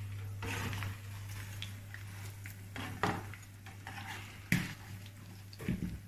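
Metal slotted skimmer and tongs clinking and scraping against a deep-frying pan as battered artichoke wedges are lifted out of the hot oil. There are a few sharp knocks, the loudest about four and a half seconds in, over a steady low hum.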